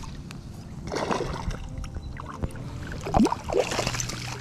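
Water sloshing and gurgling against an inflatable float tube as the angler shifts in it, with a few small knocks and a louder slosh a little past three seconds in.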